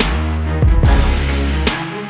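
Background music: an electronic track with a steady beat of deep bass kicks and sharp percussive hits over sustained bass and melodic tones.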